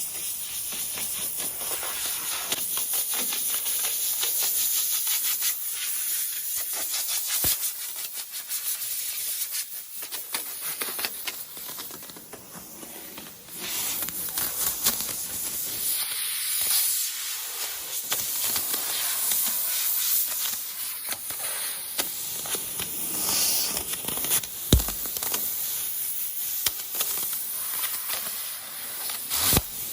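Steady compressed-air hiss from a pneumatic body-shop tool working on car paint, dipping briefly about halfway through, with a few short knocks.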